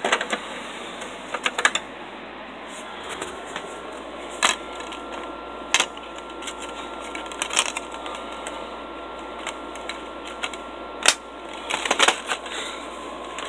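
Irregular sharp clicks and taps of plastic DVD cases being handled, a dozen or so spread unevenly, the loudest about eleven seconds in.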